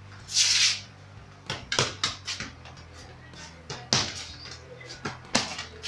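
A football kicked against a concrete wall and trapped underfoot: a string of sharp knocks of foot on ball and ball on wall, at uneven gaps of a fraction of a second to over a second. A short hissing scuff comes about half a second in.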